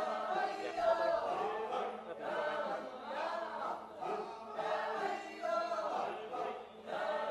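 Group of Maasai performers chanting and singing together in short phrases that repeat about once a second.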